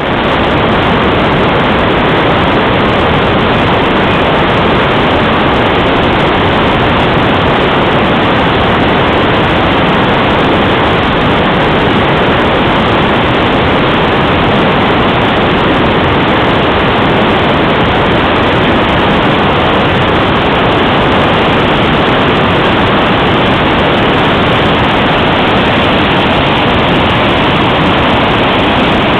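Whitewater rapids rushing loudly and steadily, a full river pouring through a rocky drop close by.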